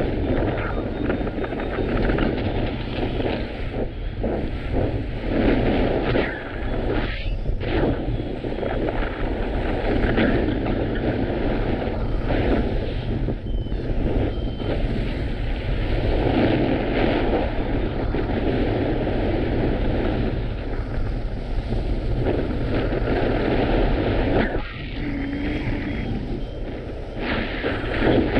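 Strong gusting wind buffeting the microphone, a dense rumbling rush that swells and eases every few seconds.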